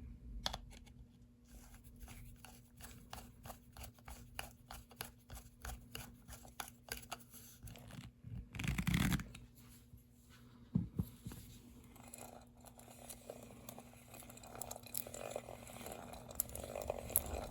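Small metal parts of a hand drill being handled and fitted together: a run of light clicks, about two or three a second, then a brief louder rustle and a stretch of soft scraping and rubbing.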